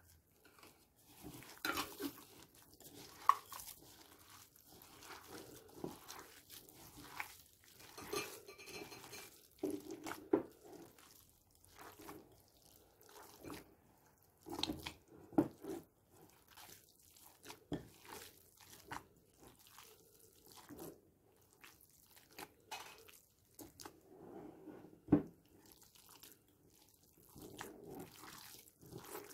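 Hand kneading raw minced meat with rice, tomato paste and pepper paste in a glass bowl: irregular wet squelching and squishing as the mixture is squeezed and turned, with a couple of sharp clicks, one about three seconds in and one near the end.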